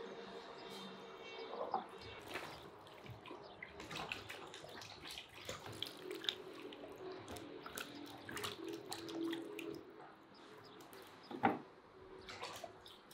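Hands washing tomatoes and cucumbers in a plastic bowl of water: water sloshing, splashing and dripping. Near the end there is a single sharp knock, the loudest sound.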